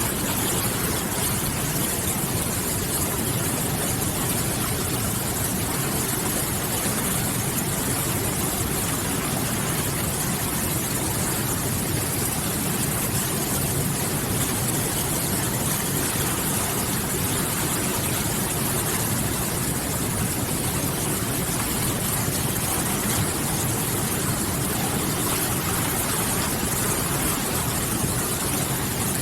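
River water rushing and splashing steadily, a constant even hiss with no change in level.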